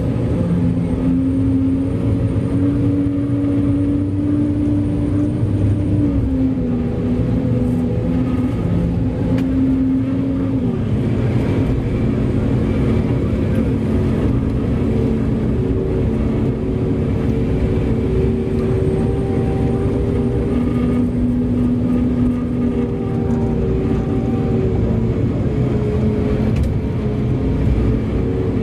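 Big diesel engines of mining machines (Komatsu haul truck and excavator at loading) running with a steady, loud drone, the engine pitch shifting several times, dropping about six seconds in and again about ten seconds in.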